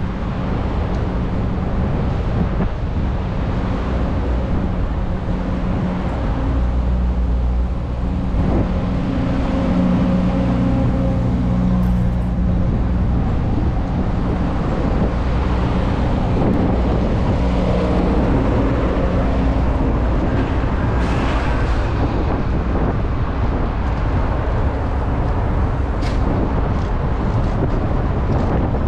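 Steady rumble and wind noise from riding a bicycle with an action camera, mixed with road traffic. A vehicle's engine hum runs through the middle stretch.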